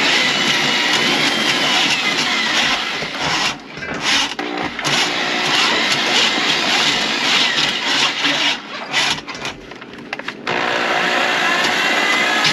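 Electric drain snake running, its motor and spinning cable making a loud, steady noise with a whine that rises and falls, while it works a grease clog out of a kitchen sink drain line. The noise drops out briefly about four seconds in and again for about two seconds near the end.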